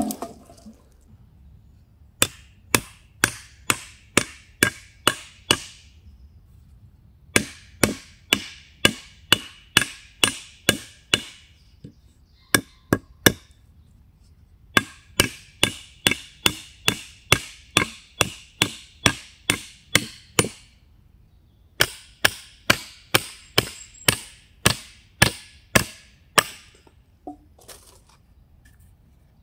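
A hatchet chopping wood on a stump: runs of sharp blows, about two a second, broken by short pauses between runs.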